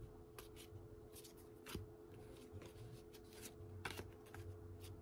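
Cardboard baseball trading cards being handled and flipped through one at a time: faint, irregular soft clicks and slides of card against card.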